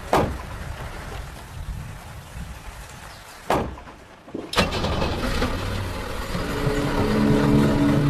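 A few sharp clunks, then an old sedan's engine is started with the ignition key about halfway through and keeps running. It becomes a steady hum with a clear pitch near the end as the car moves off.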